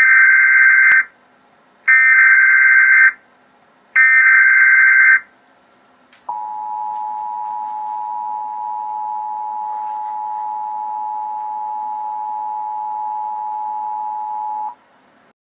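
Emergency Alert System broadcast signal: three loud, roughly one-second bursts of SAME header data tones, then the two-tone EAS attention signal, a steady dual tone held for about eight seconds that cuts off abruptly. It announces an emergency alert breaking into the program.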